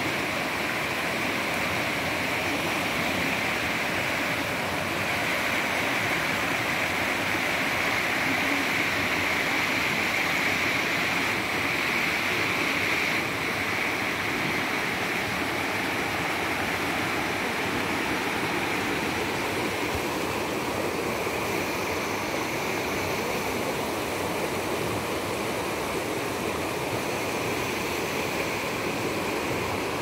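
Fast, shallow mountain river rushing and splashing over rocks and boulders: a steady, unbroken rush of white water.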